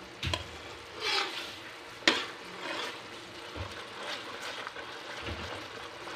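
A metal spoon stirs and scrapes coconut milk that is bubbling and sizzling in a metal pan, as it is cooked down into toasted coconut. The spoon clinks sharply against the pan about two seconds in.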